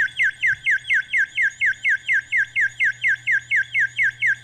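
Alarm clock ringing: a fast, even string of chirps, about four and a half a second, each one falling in pitch, over a steady low hum.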